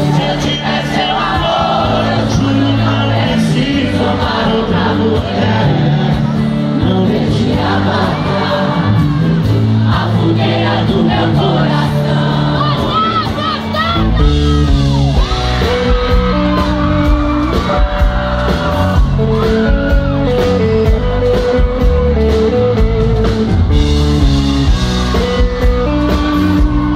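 Live sertanejo band and singing, heard loud through a phone's microphone, with shouts from the crowd. About halfway through the full band comes in with a much heavier bass and beat.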